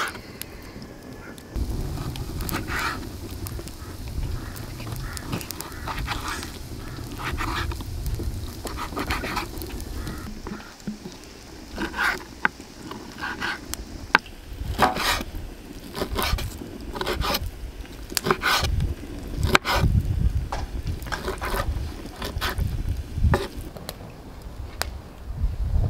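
Kitchen knife cutting raw liver on a wooden cutting board: irregular knocks and scrapes of the blade meeting the board, with a low rumble underneath at times.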